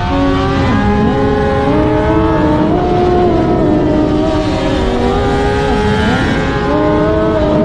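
Sport motorcycle engine running hard at speed, its pitch rising and falling as the rider works the throttle and gears through the bends, with wind and road noise.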